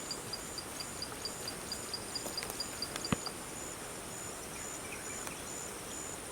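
Insects chirping in steady, evenly spaced high pulses over a constant high hiss; a faster series of quick pips stops about three seconds in. A single sharp knock comes at about the same moment.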